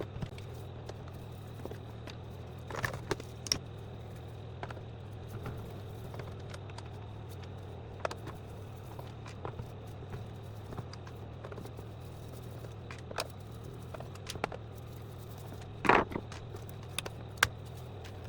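Scattered clicks, taps and scrapes of plastic parts and tools being handled while a Roborock robot vacuum is taken apart, over a steady low hum. The loudest knock comes about sixteen seconds in.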